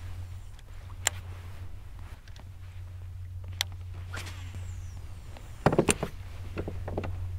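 Scattered clicks and knocks from a fishing rod and reel being handled aboard a plastic kayak, the loudest a quick cluster about six seconds in, over a steady low hum.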